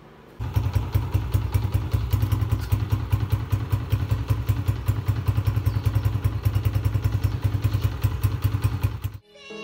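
Honda CG 125's air-cooled single-cylinder four-stroke engine idling, a steady, even run of low exhaust pulses. It cuts in suddenly just after the start and cuts off shortly before the end.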